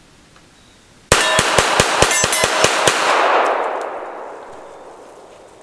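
Remington R1 Enhanced 1911 pistol fired rapidly, about ten shots in two seconds starting about a second in, each hit clanging off an AR500 steel target. The shots and steel ringing die away slowly over the next two seconds.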